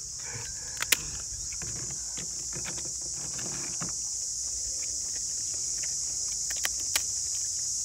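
Steady high-pitched drone of insects, with a few light clicks of chopsticks against bowls.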